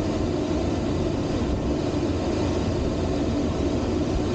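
Steady rush of airflow over a Duo Discus glider's canopy and through its partly opened ventilation vent, heard inside the cockpit in gliding flight, with no engine.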